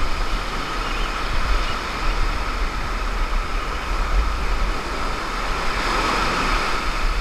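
Surf breaking and washing up over the sand, with wind rumbling steadily on the microphone.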